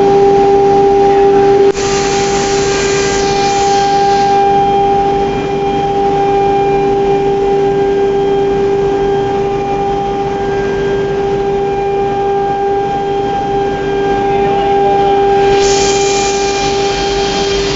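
CNC router spindle running with a steady high whine while its bit cuts door-panel grooves into a fibreboard sheet. A hissing cutting noise swells about two seconds in and again near the end.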